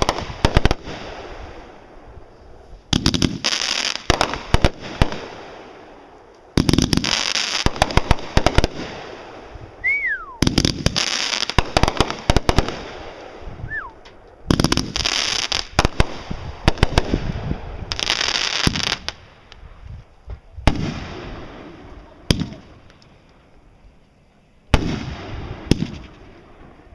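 Aerial fireworks going off one after another, about every two to four seconds. Each burst is a loud bang followed by a dense spray of crackling. Twice, a short falling whistle sounds between bursts.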